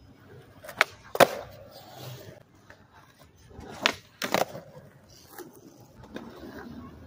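Skateboard doing flip tricks on concrete: sharp clacks of the tail popping and the board landing, a pair about a second in and a quick cluster about four seconds in, with the wheels rolling on the concrete between.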